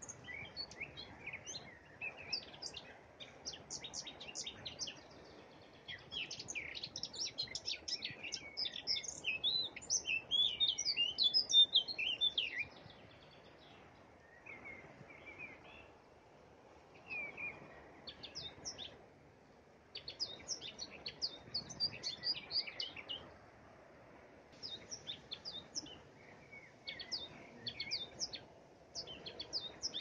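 Songbirds singing, with quick high chirping phrases that come in bursts of a few seconds and brief pauses between them, over a faint steady background hiss. The busiest, loudest stretch of song falls in the first half.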